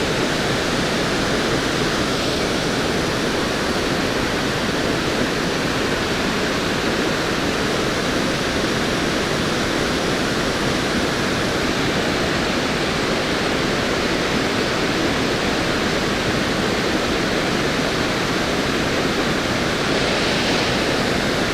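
Creek water running high and fast, a steady, even rush of water with no break.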